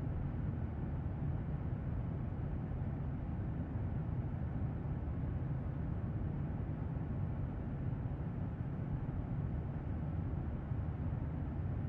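Airliner cabin noise in flight: a steady, low, even drone with no changes.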